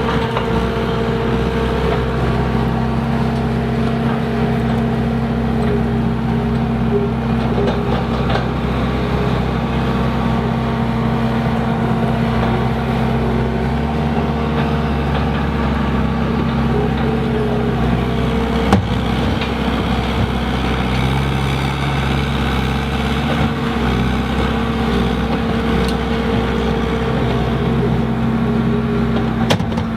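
Skid steer engine running steadily under load while it works a skeleton rock bucket through the soil, its pitch shifting a little, with a single sharp knock about two-thirds of the way through.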